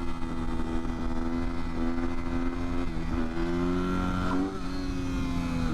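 Motorcycle engine pulling steadily in one gear at fairly high revs, its pitch climbing a little about three seconds in and again near the end, over a steady low rumble of wind noise.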